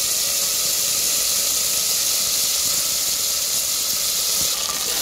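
Fresh coriander and mint leaves sizzling in hot oil with whole spices in an aluminium pressure cooker, the tempering for bagara rice: a steady, loud hiss.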